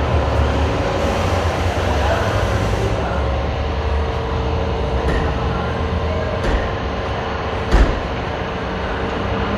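Car accessories shop ambience: a steady low rumble with indistinct voices in the background, a steady hum coming in about a third of the way through, and one sharp knock near the end.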